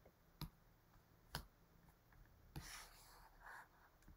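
Near silence with two faint clicks and then about a second of faint scratching, from the pen or pointing device drawing a rectangle on screen.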